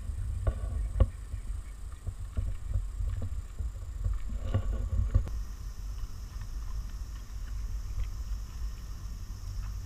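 Dogs wading through shallow pond water: irregular splashing and sloshing, loudest about a second in and again around four and a half seconds in, over a steady low rumble on the microphone.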